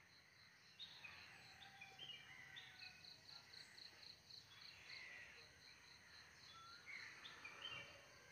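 Faint morning birdsong: scattered short chirps and whistles from several birds, over a steady high insect call pulsing about three times a second.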